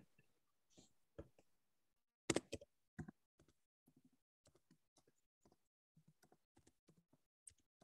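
Near silence broken by faint scattered clicks of typing on a computer keyboard, a short cluster of keystrokes about two and a half seconds in, then fainter taps.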